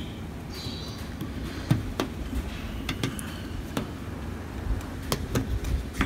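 Scattered small clicks and taps of fingers working a rubber gasket and plastic trim into a car door-handle recess, over a low background rumble.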